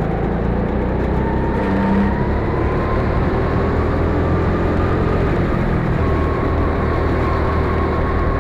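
Go-kart engine heard from on board, running under throttle with its pitch climbing steadily over the first few seconds, then dropping a little about six seconds in.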